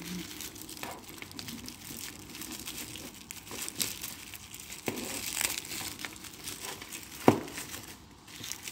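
Plastic bubble wrap crinkling and crackling in irregular bursts as it is handled and pulled away from a wrapped watch, with one sharp click a little after seven seconds in.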